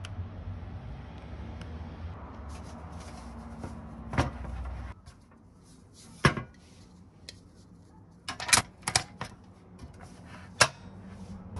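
Portable cassette gas stove being set up: sharp metal clicks and clunks as the butane canister is fitted into its compartment, several in quick succession near the end. Before that, a steady low hum with a single knock about four seconds in.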